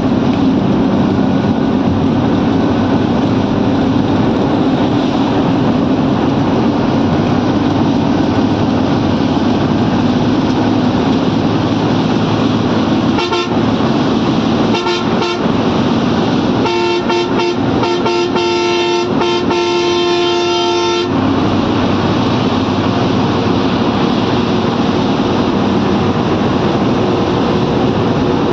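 Steady engine and road noise of a coach at highway speed, heard from inside the cab. About halfway through a vehicle horn gives a few short toots, then sounds for about four seconds with brief breaks while the coach overtakes another bus.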